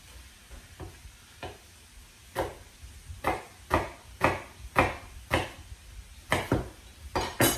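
Chef's knife chopping an apple on a wooden cutting board: a run of sharp knocks, faint at first, then about two a second from a couple of seconds in.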